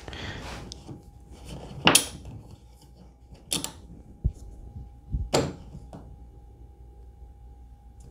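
Metal bar clamp being handled and fitted against wood: three sharp clicks and clatters of its sliding jaw, about a second and a half apart, with lighter knocks between.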